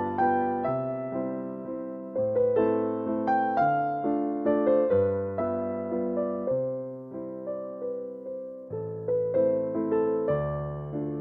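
Background piano music: a slow melody of struck notes, each fading away, over lower bass notes that change every couple of seconds.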